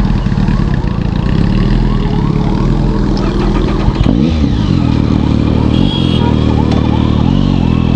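Motorcycle engine running as the bike pulls away in traffic, its note rising and then dropping about four seconds in as the rider changes gear.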